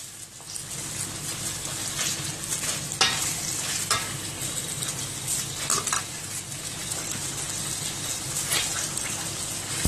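Raw chicken pieces sizzling in hot oil in a steel kadai while being stirred with a perforated metal ladle. A steady frying hiss runs throughout, with a few sharp clicks as the ladle knocks and scrapes against the pan.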